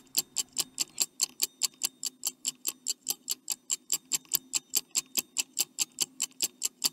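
Stopwatch ticking sound effect: a fast, even tick about five times a second, counting down the time to answer a quiz question.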